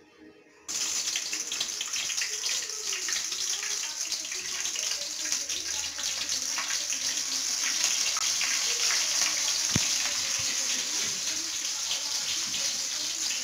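Green chillies sizzling in hot oil in a steel kadai, starting suddenly about a second in. A steady hiss with many fine crackles follows.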